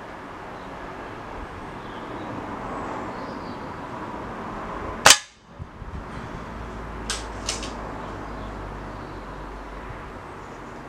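Air rifle firing a single shot: one sharp crack about five seconds in. Two light clicks follow about two seconds later.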